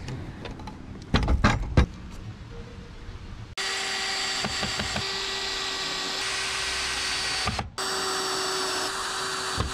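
DeWalt cordless drill driving screws into pine lumber: the motor runs with a steady whine for about four seconds, stops for a moment, then runs again for about two seconds. A few knocks come about a second in, before the drill starts.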